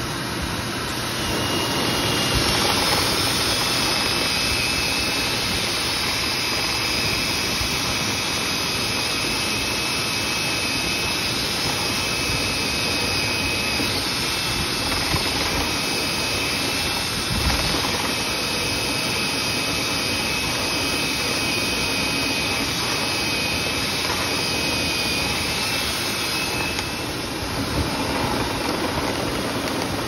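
Cordless drill spinning a rotary brush rod inside a dryer vent duct: a steady high motor whine starts about a second in and stops shortly before the end, over a steady rush of air.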